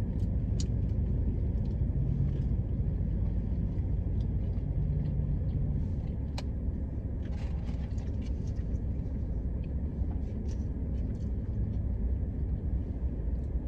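Steady low rumble of a car's engine and air conditioning, heard inside the cabin, with a few faint clicks and rustles over it.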